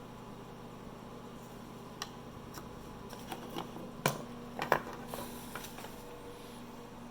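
Scattered light clicks and taps of small mouse parts and tools being handled during a switch replacement, over a steady low hum. One click comes about two seconds in, and a cluster runs through the middle, loudest around four to five seconds.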